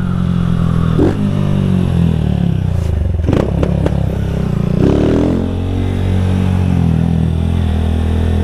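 Honda CG 160 Fan's single-cylinder four-stroke engine running loud through an aftermarket Doré exhaust while the bike is ridden, its note rising and falling with the throttle. A short clatter of sharp knocks comes about three seconds in.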